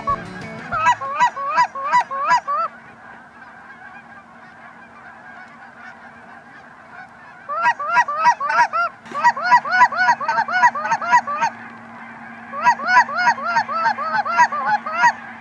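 A flock of Canada geese honking in flight. Many overlapping two-part honks come in bursts: a short burst about a second in, a lull of several seconds, then long runs of dense calling.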